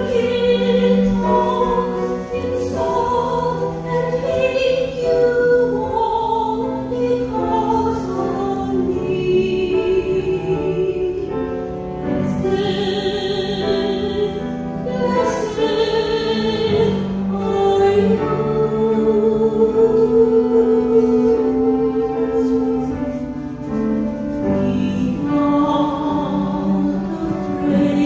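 A sacred hymn sung with vibrato over sustained accompanying notes, the melody moving in long held phrases.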